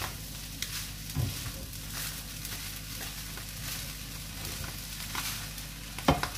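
Chicken fried rice sizzling steadily in a non-stick frying pan as it is stirred and tossed with two spatulas, their scraping against the pan heard every second or so. Two sharp knocks of a spatula on the pan, one about a second in and a louder one near the end.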